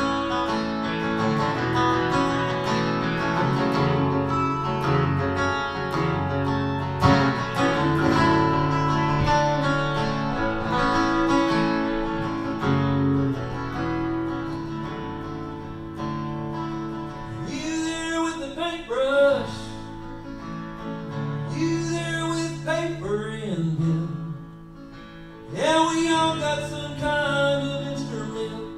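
Live acoustic guitar strummed through a song, with steady sustained chords. In the last third, wavering melody phrases come in over the chords.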